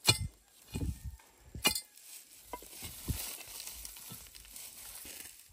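A wooden digging stick being jabbed and levered into the ground through dry fern and grass litter to open a hole for replanting taro tops. There are a couple of sharp knocks and a few dull thuds, then a steady crackling rustle of dry leaves as the stick is worked in the soil.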